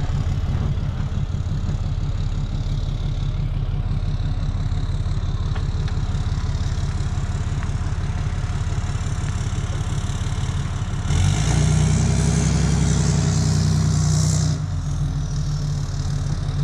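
Truck engine idling with a fast, even low pulse; about eleven seconds in it revs louder and harsher for about three and a half seconds, then settles back to idle.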